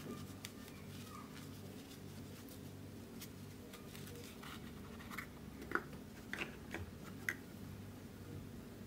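Gloved hands packing kinetic sand into a small plastic castle mold and turning it out: soft scratchy rustling with a few sharp clicks of the plastic, the sharpest about five to seven seconds in, over a low steady hum.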